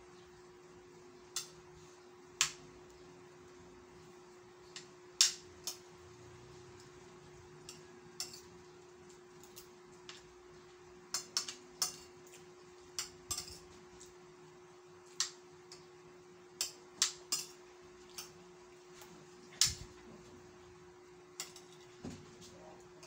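A metal spoon clinking and scraping against a ceramic plate during eating, in about twenty scattered sharp clicks, over a faint steady hum.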